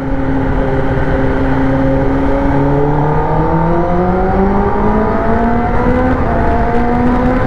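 Kawasaki Ninja ZX-10R inline-four engine pulling hard in second gear, its revs climbing steadily as the bike accelerates, with wind rush on the helmet-mounted microphone. Echoing inside a tunnel.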